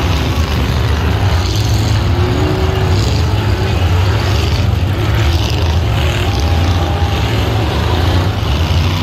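Several Ultra4 off-road race cars' engines running over a steady, loud low rumble, with a few short revs that rise and fall in pitch as the cars work over the rocks.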